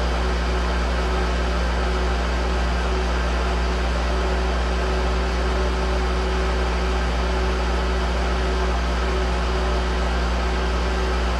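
A 1983 Monarch 10EE lathe running steadily at about 1200 rpm, a constant low hum with a few steady tones, while a center drill held in the tailstock is fed into the work.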